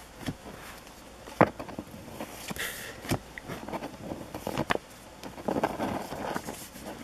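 Paper hockey stickers handled in a stack, each one slid from the back to the front: a few sharp paper clicks and snaps, a short rustle, and paper rubbing on paper near the end.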